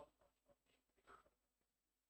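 Near silence: room tone, with a few faint brief sounds.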